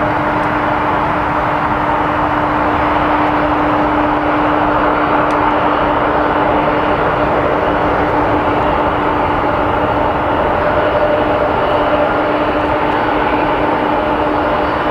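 Jet engines of a large cargo airliner running: a loud, steady rush with a constant whining tone through it.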